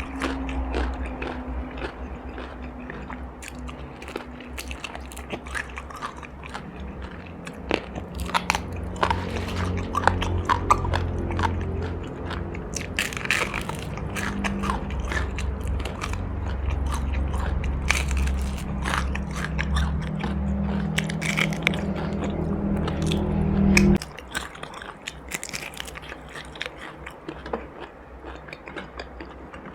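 Close-up chewing and crunching of crisp food: many sharp crunchy bites and mouth sounds. A low steady hum runs underneath and cuts off suddenly near the end.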